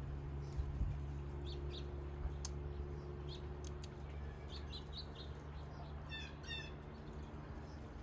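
Wild birds calling: scattered short, high chirps, and a brief rolling call about six seconds in, over a steady low hum that fades out near the end.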